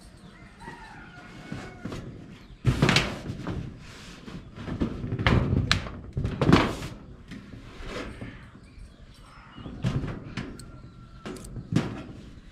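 A series of irregular heavy thuds and knocks, the loudest about three seconds in and again about six and a half seconds in.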